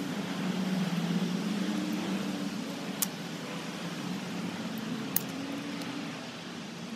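A steady low mechanical hum, its pitch wavering slightly, with a couple of sharp clicks from the folding bike's parts as it is folded.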